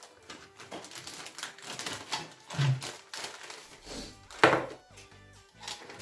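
Thin plastic bag crinkling and rustling in quick irregular crackles as a plastic model-kit hull part is handled and pulled out of it. A single sharp clack about two-thirds of the way in is the loudest sound.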